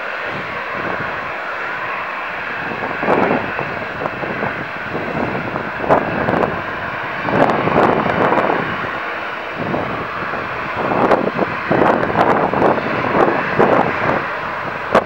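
Airliner engines at high power during a departure: a steady rush with irregular loud crackling bursts from about three seconds in.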